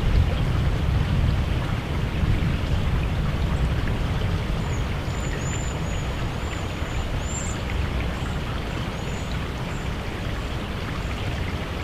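Wind buffeting the microphone: a steady low rumble with a hiss over it. About five seconds in, a small bird's thin, high chirps come in faintly, repeating for several seconds.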